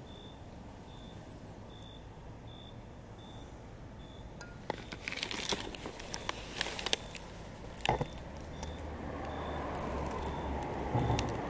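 A reversing alarm beeping steadily at a single pitch, a little more than once a second. From about five seconds in comes a run of sharp crackling clicks and rustles, and an engine rumble swells near the end.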